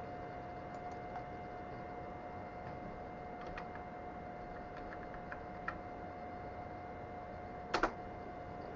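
A few soft clicks of computer keys as a filename is edited, then a sharper double click near the end, over a steady background hum with a constant tone.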